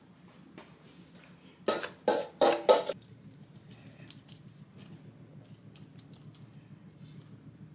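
A brief cluster of loud knocks or clatters about two seconds in, then faint, soft, irregular ticking and patting as fingers spread chili seasoning paste onto salted perilla leaves in a stainless steel bowl, over a low steady hum.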